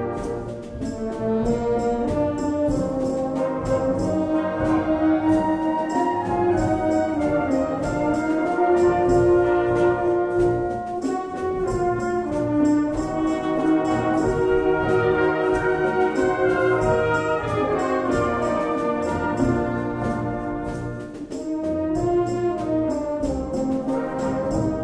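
Live wind band playing a rumba: a brass melody in held notes over a steady percussion beat.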